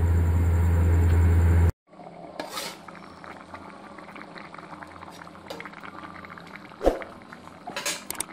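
A steady low hum, cut off abruptly after about a second and a half. Then goat-trotter (paya) curry broth bubbling at a rolling boil in an uncovered metal pot, with one sharp knock about seven seconds in.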